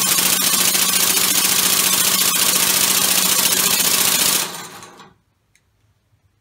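Homemade six-cylinder, two-plate compressed-air engine running: a loud hiss of exhausting air with a rapid clatter of valves and pistons over a steady hum. About four and a half seconds in it dies away within half a second, and two faint clicks follow.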